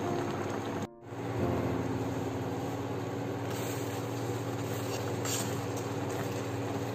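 Steady low hum with a light hiss from an induction cooktop heating a steel pan of simmering plum jam. The sound cuts out briefly about a second in.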